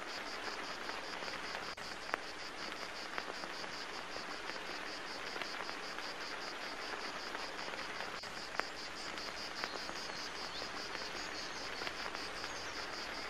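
A cricket chirping in rapid, even pulses, high-pitched, over a steady hiss, with a few faint clicks.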